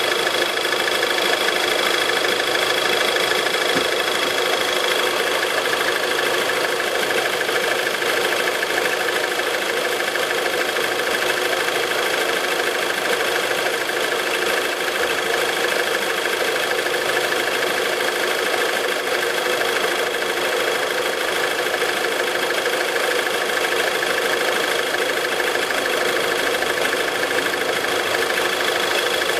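Audi 2.0 FSI four-cylinder petrol engine, engine code AWA, idling steadily. A thin high whine rides over it, fading a few seconds in and returning near the end.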